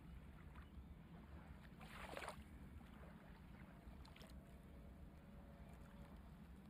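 Near silence: low steady room hum, with one brief soft rustle about two seconds in and a couple of faint ticks a little later.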